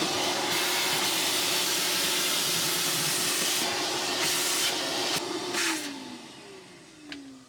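Vacuum cleaner running with a steady hiss and hum as it sucks up sawdust, the suction sound wavering briefly a few times. Near the end it is switched off and the motor winds down in a falling whine.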